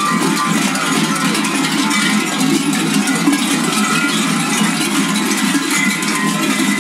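Large metal bells worn on kukeri costumes clanging together in a continuous, dense jangle as the dancers move and jump.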